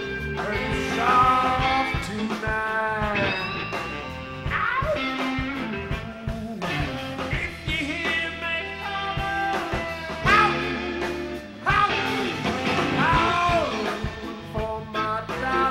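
Blues band playing live: drums, bass and electric guitar under a lead line that bends up and down in pitch.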